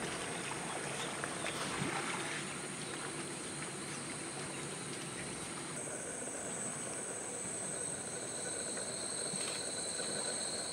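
Steady high-pitched buzzing of insects, with a second insect chorus at a lower pitch joining about six seconds in.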